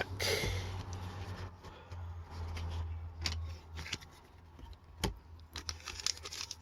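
Trading cards and packs being handled on a table: soft rustling and a few light clicks, over a steady low hum.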